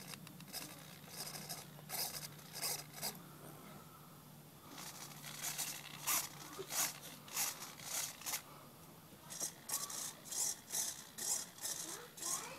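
Small RC servos buzzing in short bursts as they swing the foam model airliner's control surfaces back and forth, in several quick groups with short pauses between them.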